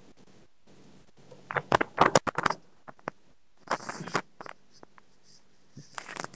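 Scratchy, crackling bursts of noise on a breaking-up video-call audio line, three in all, with brief dropouts in the background hiss. The presenter's voice is cutting out over the connection.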